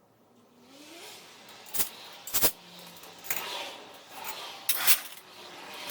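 Hand-tool work on engine parts: rubbing and scraping with several sharp metal clanks, the loudest about two and five seconds in.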